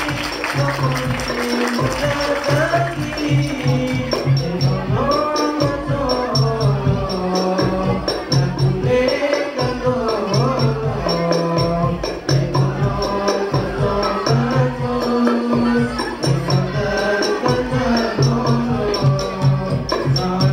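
Music of a frame-drum and tambourine ensemble: low drum strokes and jingles keep a steady, repeated beat under a sung melody.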